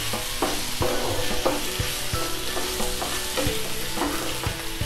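Spice-marinated chicken pieces and sliced onions sizzling in hot oil in a non-stick frying pan, with repeated light knocks as the pieces are turned and placed in the pan.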